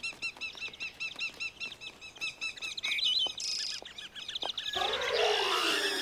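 Many cartoon birds chirping together in quick, repeated tweets. Near the end, a louder swell of sliding, swooping whistle-like tones comes in over the chirping.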